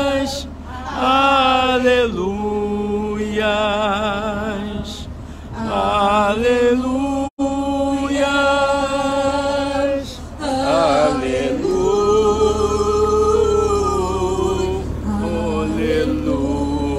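A woman singing a Portuguese worship song into a microphone, amplified, in long drawn-out notes with vibrato over steady held accompanying notes.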